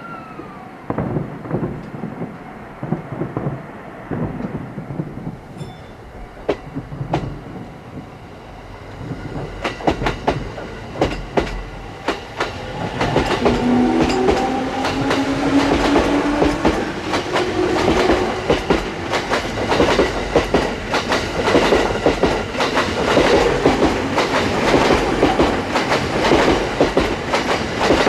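JR Narita Line train running past, wheels clattering rapidly over the rail joints. The clatter builds from about ten seconds in and stays loud to the end, with a wheel squeal for a few seconds as it grows loud.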